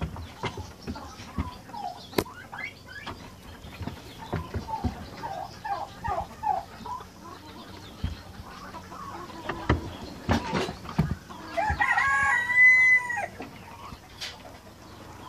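A rooster crows once, loudly, about twelve seconds in, after a short run of chicken clucks near the middle. Short knocks and scrabbles of a rabbit's paws on the wooden hutch floor come and go throughout.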